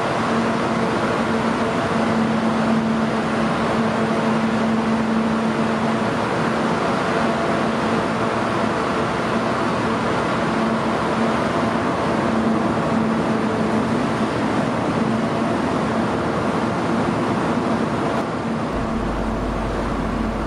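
Steady machinery noise of a car ferry, heard on its car deck: a continuous rushing sound with a steady drone beneath it.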